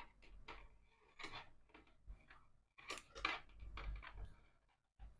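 Black PVC insulating tape being pulled off the roll and wrapped around a wire joint: a series of short, faint peeling and rustling sounds.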